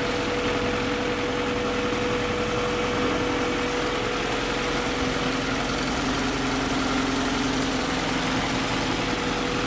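A Honda Civic's swapped B-series four-cylinder engine idling steadily, with a steady tone over the idle. It is being run to check a newly fitted valve cover gasket for oil leaks.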